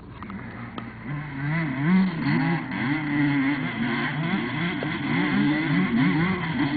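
Motocross motorcycle engine revving hard, its pitch rising and falling over and over. It gets much louder about a second in.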